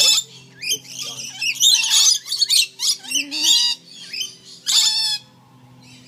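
Lorikeets screeching at close range: a run of harsh, shrill calls in quick bursts, easing off near the end.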